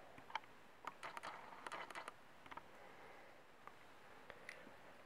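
A scatter of faint, light metallic clicks and taps, most in the first two and a half seconds: driver pins being worked out of a disassembled Yale six-pin half-cylinder lock housing by hand.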